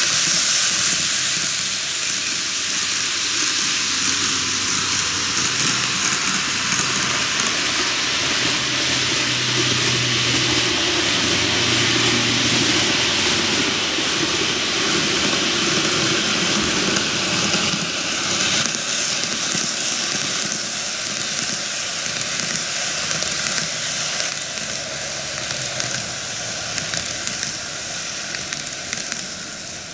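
TOMIX N-gauge model trains (Odakyu 4000 series and 50000 VSE) running on curved track: a steady rolling hiss of small wheels on rail with a low motor hum, easing slightly near the end.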